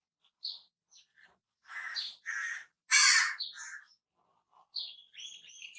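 Crows cawing: a run of about four harsh caws starting a little under two seconds in, the loudest about three seconds in. Shorter, higher notes come before and after the run.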